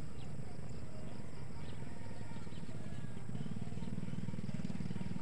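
A vehicle engine running steadily, getting louder over the last couple of seconds, with short faint bird chirps above it.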